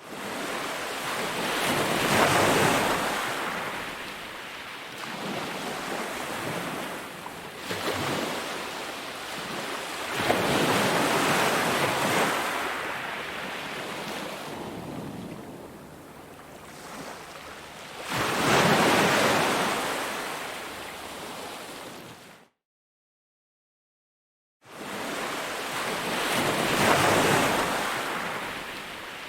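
Ocean surf: waves breaking and washing up the beach in slow surges about eight seconds apart. Near the end the sound cuts out to dead silence for about two seconds, then the surf comes back.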